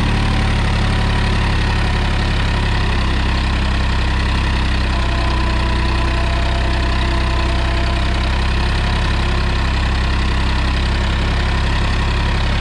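Massey Ferguson 245 DI tractor's 50 hp three-cylinder diesel engine running steadily under load while pulling a 7-foot rotavator through the soil.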